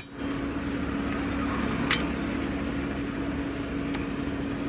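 Portable tyre inflator's compressor running with a steady hum while pumping air into a car tyre, with a sharp click about two seconds in.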